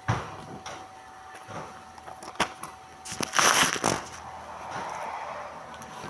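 Cosmetics packaging being handled: a sharp knock at the start, a few light clicks, then a loud rustle about three seconds in, lasting under a second.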